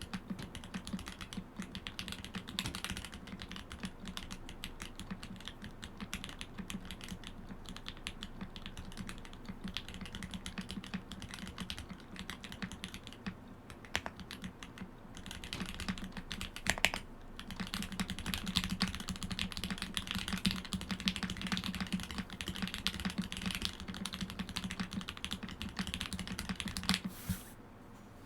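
Typing on a Mode Eighty mechanical keyboard with Lil Tykes switches and Domikey Dolch ABS keycaps: a steady stream of key presses. The typing gets denser and louder from a bit past halfway, with one stronger clack about 17 seconds in, and stops just before the end.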